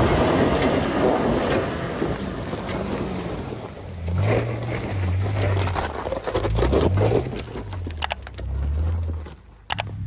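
Toyota Fortuner's engine revving up and down in several surges as it crawls over a rocky ledge, after a couple of seconds of loose gravel and rock noise under the tyres. The sound cuts off abruptly near the end.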